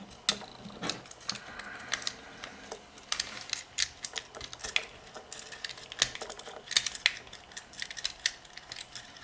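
Light, irregular clicks and taps of small metal pressure-switch parts being handled, a nut turned by hand on its threaded spring rod.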